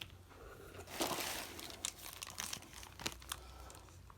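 Packaging crinkling and rustling as parts are unwrapped from a parcel, with a louder burst of crinkling about a second in and a few short sharp clicks after it.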